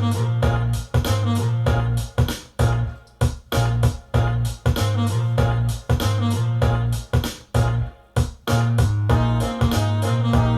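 Background music with a steady beat, bass and electric piano.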